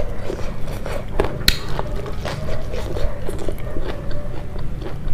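Close-miked chewing of a person eating, with irregular sharp mouth clicks and smacks.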